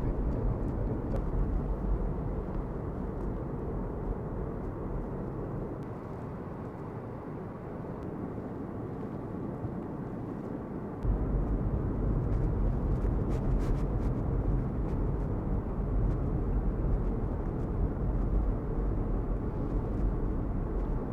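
Steady rumble of a car on the move, road and wind noise heard from inside the car. The deep part of the rumble fades for a few seconds and comes back suddenly about halfway through.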